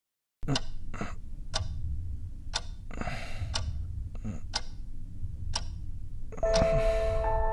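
Analogue alarm clock ticking about once a second, sharp and dry, over a low rumbling drone that comes in about half a second in. Near the end, held musical tones begin.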